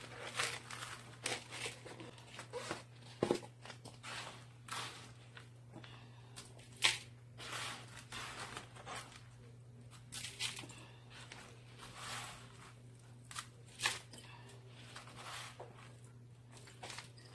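Gloved hands scraping and rustling through potting soil in a large plastic pot, an irregular series of gritty scuffs with a few sharper knocks. A steady low hum runs underneath.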